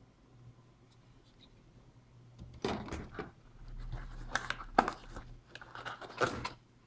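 Plastic packaging rustling and crinkling in irregular bursts as a packed part is handled and unwrapped, with a sharp click near the middle.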